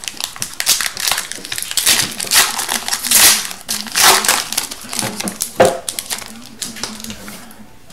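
A hockey card pack's foil wrapper being torn open and crinkled by hand: a busy run of crinkling and tearing rustles, with one sharper snap about five and a half seconds in.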